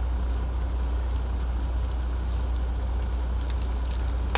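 Steady low rumble of an idling truck engine, heard inside the cab. Near the end come a few faint clicks as a knife cuts through roast meat.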